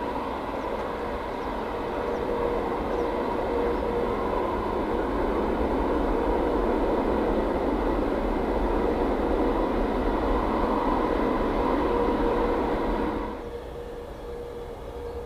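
Airbus A380 jet engines during the landing rollout: a loud, steady rushing noise with a constant whine through it. About thirteen seconds in it drops abruptly to a quieter engine hum.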